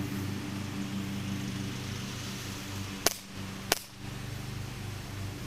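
Two sharp shots from a Crosman C11 CO2 BB pistol, about two-thirds of a second apart, over a steady low hum.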